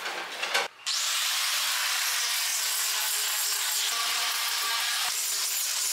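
Corded angle grinder running steadily, sanding the inside of a hollowed wooden tub with a steady rasping hiss. It starts about a second in, after a brief clatter.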